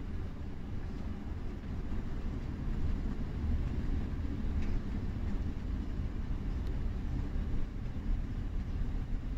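A moving intercity coach heard from inside the cabin near the driver: a steady low drone of engine and road noise, with tyres running on a wet road.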